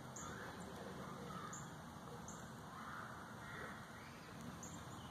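Faint chirps and calls of small birds, short and repeated every second or so, over a quiet, steady outdoor hiss.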